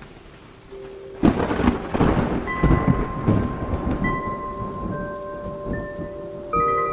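A thunderclap about a second in, rumbling on with rain and slowly fading. Steady bell-like tones sound over it, with more of them joining near the end.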